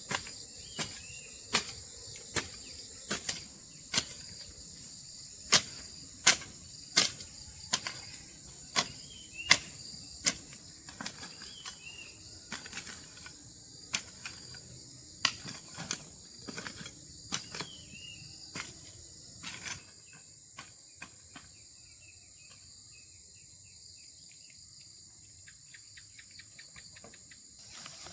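Steady high-pitched drone of crickets and other insects, with a run of sharp knocks, irregular at about one or two a second, that thin out and fade after about twenty seconds. A few short chirps come in between.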